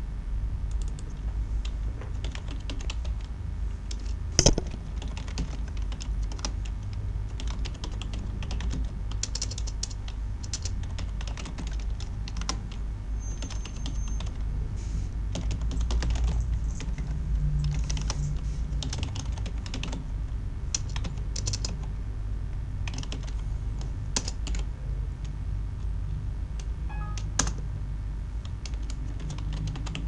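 Computer keyboard typing: keys clicking in quick irregular runs, with one louder click about four seconds in, over a low steady hum.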